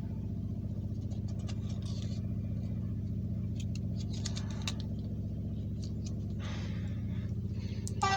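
A motor running with a steady low hum and a fast, even pulsing, with a few light clicks and a brief rustle near the end.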